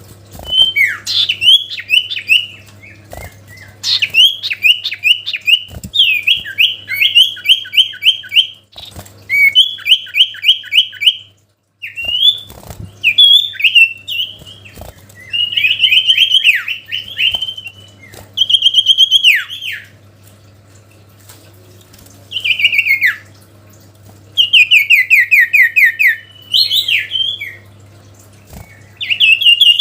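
A songbird singing loud phrases of fast repeated chirping notes, with short pauses between them, over a faint steady hum.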